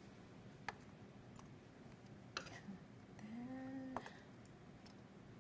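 Quiet room with about four faint, light clicks of tableware spread through the stretch, and a brief hummed voice a little past three seconds in.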